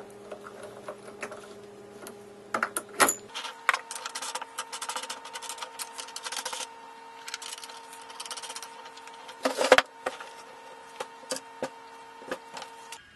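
Small metal clicks, taps and rattles as step pulleys, washers and nuts are handled and fitted onto the threaded spindle of a homemade wooden lathe headstock, with sharper knocks about three seconds in and near ten seconds. A faint steady hum runs underneath.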